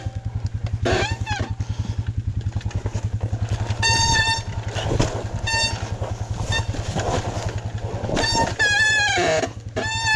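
Dirt bike engine idling with a quick, even putter while the bike creeps down a steep rocky descent. Over it come several short high squeals, some steady and some bending in pitch, like brakes held hard on the way down.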